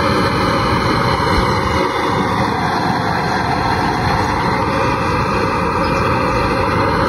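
Electric blower running steadily, forcing air through the burner pipe of a homemade used-oil stove while fire burns inside it: a loud, even rushing noise.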